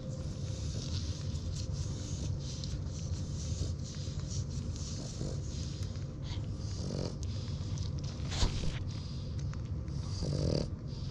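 Day-old French Bulldog puppies suckling at their mother's teats: a busy run of wet snuffling and suckling noises over a steady low rumble, a brief sharp click about eight seconds in, and a short pitched grunt near the end.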